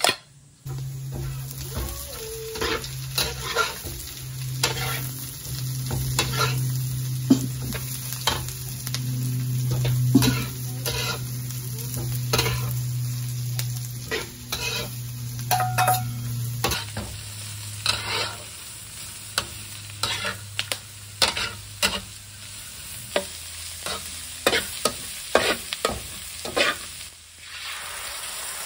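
Vegetables stir-frying in a wok over a wood fire: steady sizzling, with a metal utensil repeatedly scraping and clinking against the wok. A low steady hum runs under the first half.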